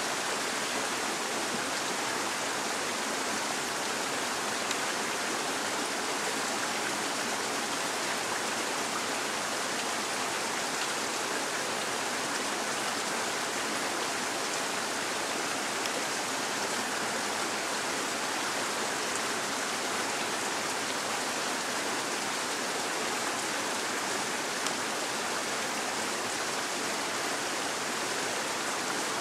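Shallow forest stream running steadily over stones.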